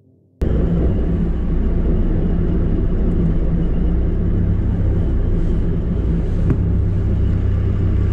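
Steady low rumble of a rail vehicle's engine and running gear, heard from inside its cab as it rolls along the track. It cuts in suddenly about half a second in.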